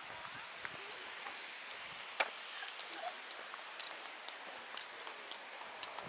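Footsteps of a walker on a park path, a run of small sharp ticks with one louder click about two seconds in, over a steady background of faint distant voices.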